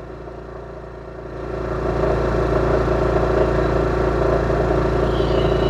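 Powerhorse 7500i inverter generator's engine running steadily at about 3,400 RPM under a heavy load of roughly 5,100 watts from a 5-ton air conditioner. The hum grows louder about a second and a half in, then holds steady.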